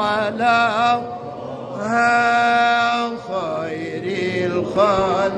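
A man's solo voice chanting an Islamic ibtihal (devotional supplication), unaccompanied, with wavering melismatic ornaments and one long steady held note near the middle.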